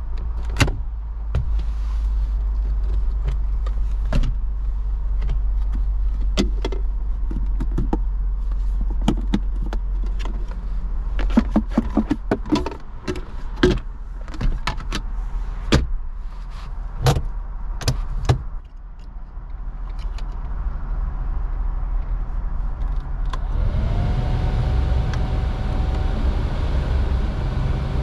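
Plastic clicks and knocks of a 2018 Jeep Wrangler's glovebox and centre-console lid being opened, latched and handled, over a low steady engine idle hum. About four seconds before the end the climate-control blower fan starts, its whine rising and then holding steady under a fan rush.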